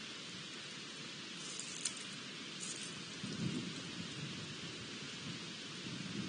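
Outdoor ambience: a steady hiss with low, gusty rumbles of wind on the microphone, one swelling about three and a half seconds in.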